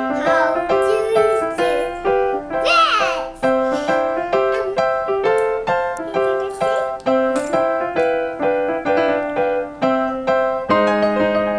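Background music: a bouncy melody of short, even notes on an electric piano or keyboard, with a brief high sliding voice-like sound about three seconds in.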